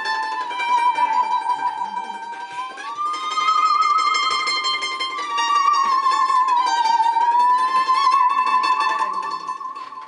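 Musical saw bowed in a slow melody: one sustained wavering tone that slides smoothly up and down. Under it, a small guitar is strummed in chords that change a few times.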